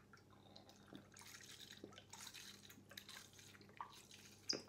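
Soy sauce trickling and dripping from an upturned bottle into a small measuring cup, faint. A sharp click near the end.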